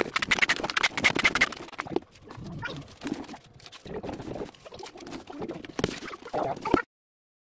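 Packing tape unrolling off a handheld tape dispenser with a fast, rasping screech for about the first two seconds, then quieter rustling and rubbing as hands smooth the tape down over plastic wrap. The sound cuts off abruptly near the end.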